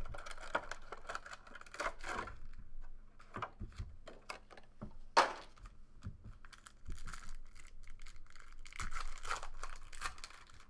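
Plastic wrap and foil trading-card pack wrappers crinkling and tearing in the hands, with one sharp rip about five seconds in.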